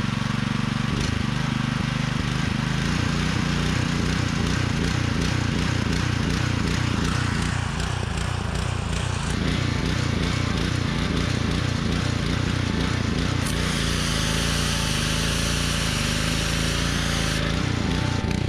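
Honda gasoline engine of a Simpson pressure washer running at high throttle, its speed rising and falling unevenly: surging at full throttle, which the owner puts down to a probably clogged carburettor main jet. A high hiss joins in for a few seconds in the second half.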